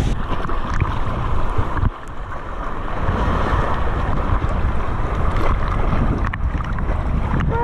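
Ocean surf washing over lava rock, with wind rumbling on the microphone, then water sloshing and splashing around a camera held at the sea surface.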